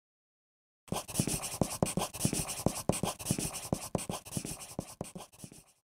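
A rapid, irregular run of sharp clicks over a scratchy rustle, about five clicks a second, starting about a second in and dying away near the end.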